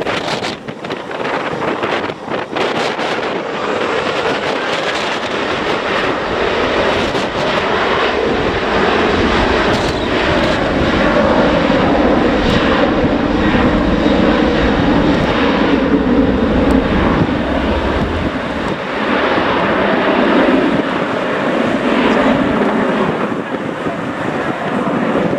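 Jet airliner passing close by, its engine noise building over the first several seconds, staying loudest through the middle with a deep rumble, then easing slightly near the end.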